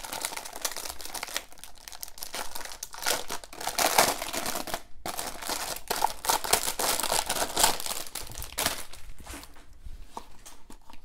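Clear plastic wrapping crinkling as it is pulled off a new binder by hand, with a brief pause about five seconds in.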